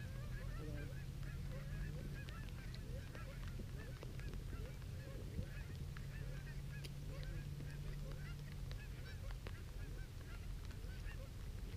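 A flock of Canada geese honking, with many short calls overlapping throughout, over a steady low rumble.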